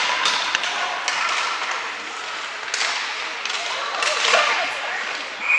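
Game sounds: indistinct voices and crowd chatter with a few sharp knocks of play, one near the start and others around the middle and a second before the end.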